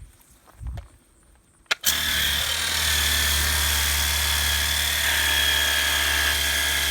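Battery-operated pressure washer starting with a click about two seconds in, then its electric motor and pump running steadily with a low hum, a high whine and the hiss of the water spray.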